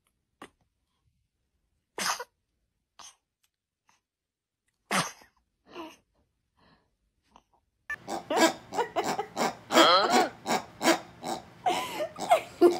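A young infant makes a handful of short, sudden noisy vocal sounds, each a second or more apart, with near silence between them. About eight seconds in, a much louder, busy run of quick sharp sounds mixed with voice begins.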